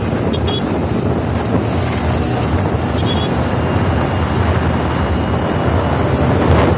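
Wind buffeting the microphone over road and engine noise from a scooter riding at speed. It swells slightly near the end as a lorry passes close alongside.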